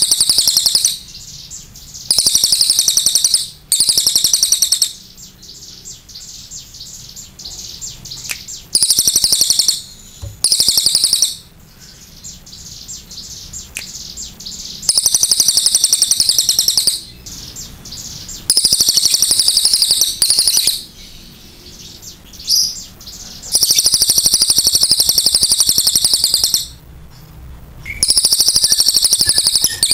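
Crested shrikejay (cililin) singing loud, very high, rapid trilling phrases of one to three seconds each, repeated over and over with short pauses between them.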